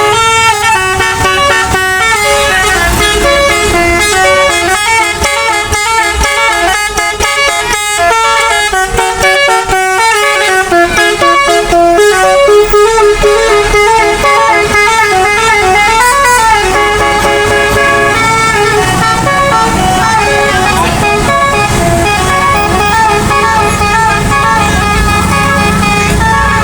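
Bus telolet basuri musical air horn playing a long tune of stepping notes, over a bus engine running.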